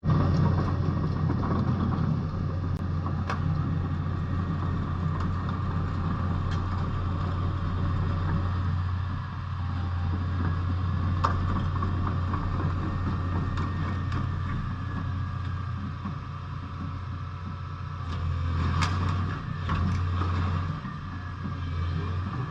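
Diesel engine of a Doosan DX225LC-3 hydraulic excavator running steadily with a deep hum, with a few sharp clanks and a brief rise in engine sound near the end.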